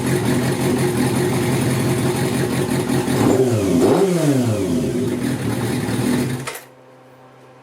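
Kawasaki Zephyr motorcycle's four-cylinder engine, on fresh Brisk spark plugs and racing carburettors, running steadily with one quick throttle blip about halfway through. The sound cuts off suddenly shortly before the end.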